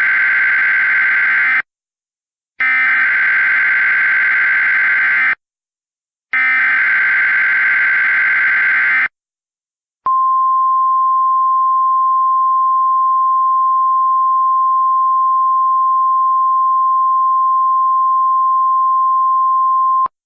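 Emergency Alert System SAME header: three harsh, buzzy data signals, each nearly three seconds long with about a second of silence between. They are followed by about ten seconds of NOAA Weather Radio's steady single-pitch warning alarm tone, which alerts listeners to a severe thunderstorm watch.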